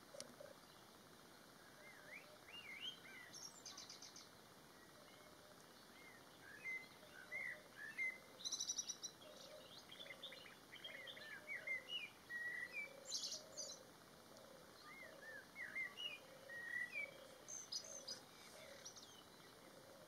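A male blackbird singing: about four separate song phrases, each of short warbled whistles followed by a high, rapid, squeaky twitter, with pauses between them.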